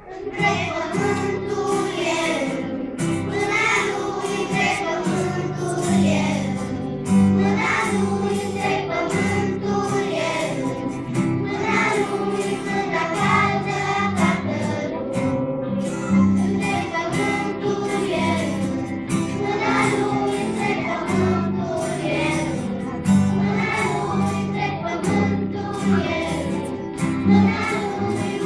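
A children's choir singing a Christian song with guitar accompaniment, beginning right at the start.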